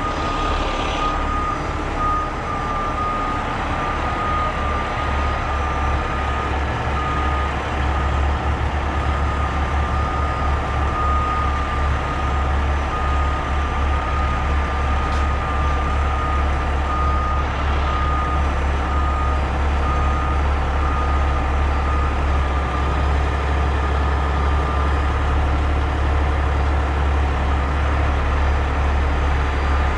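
Heavy rotator tow truck's diesel engine running steadily under a boom lift, getting a little louder about eight seconds in. An electronic alarm beeps at an even pace over it.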